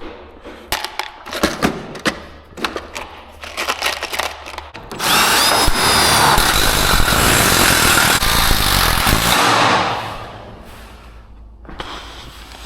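Scattered knocks and clatter of hardware, then a power drill runs steadily for about five seconds from about five seconds in, driving a long screw.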